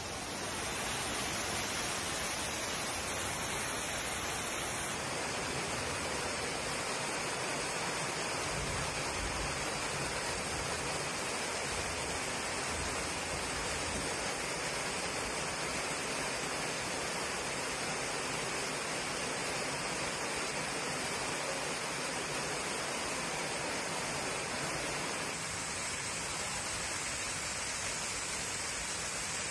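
Floodwater pouring into an underground train station, a steady rush of water.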